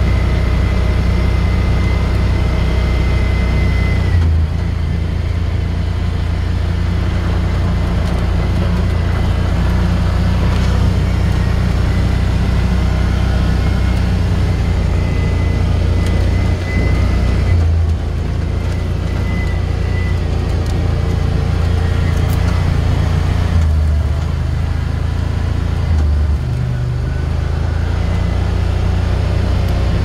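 Side-by-side UTV's engine running steadily as it rolls slowly along a dirt road, with a low drone and a few brief changes in throttle.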